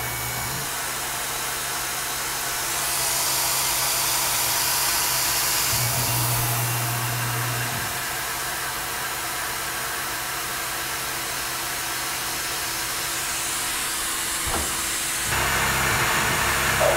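Tormach PCNC 1100 CNC mill running, with its spindle driving a drill into an aluminum plate and the mist-coolant nozzle hissing steadily. The hiss gets brighter a few seconds in, and a low hum from the machine rises briefly twice, the second time near the end.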